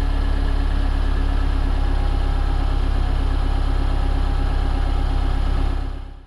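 2016 Mini Clubman Cooper S's turbocharged 2.0-litre four-cylinder idling steadily through its exhaust, with a deep, even hum; the sound fades away near the end.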